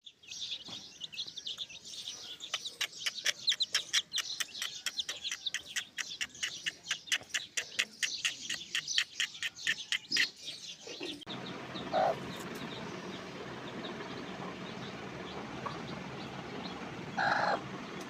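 Newly hatched chicks peeping rapidly and continuously in high chirps. About eleven seconds in, the peeping stops abruptly and a steady noisy background takes over, broken twice by a short, louder lower call.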